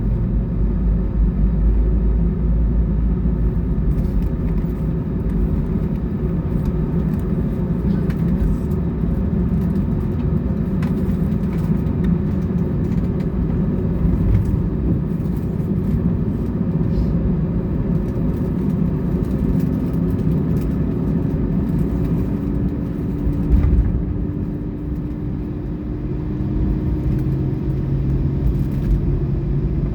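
Airbus A320 cabin noise on the ground, before takeoff: a steady low rumble of the engines at idle. A faint tone rises slowly during the second half, and a short bump comes about two-thirds of the way through.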